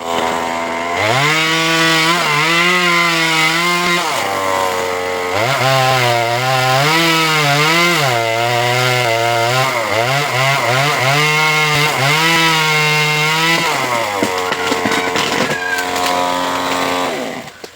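Two-stroke chainsaw running at high revs while cutting a tree, its engine note dipping and recovering a few times as the chain works through the wood. About fourteen seconds in it drops to a lower, slower run, and it dies away just before the end.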